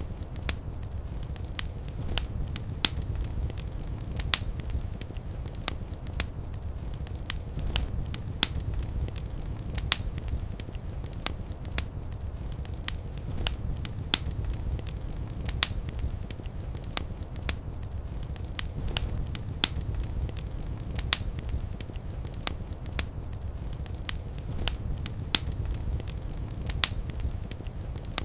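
Fireplace fire crackling: sharp, irregular pops several times a second over a steady low rumble of the flames.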